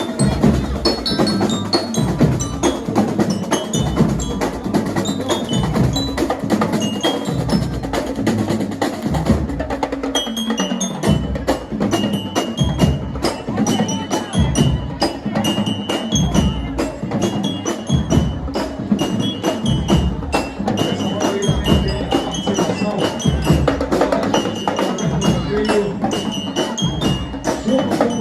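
Marching band (fanfarra) playing on the move: bass and snare drums beat a steady march rhythm under a high melody of struck bell-lyre notes, which come through more clearly from about a third of the way in.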